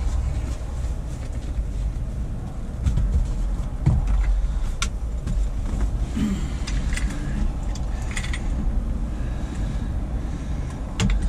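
Metal mounting brackets and a laptop-stand arm being handled and set against a car seat, giving scattered clinks and knocks over a steady low rumble.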